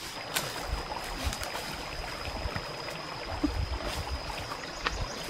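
Outdoor ambience: a steady high-pitched tone throughout, light scattered clicks and rustles, and low rumbles like wind on the microphone in the second half.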